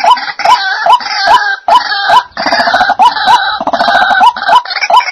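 White-breasted waterhens calling: a harsh, rapid croaking chorus over a short rising note repeated about two and a half times a second, with the chorus breaking off briefly now and then.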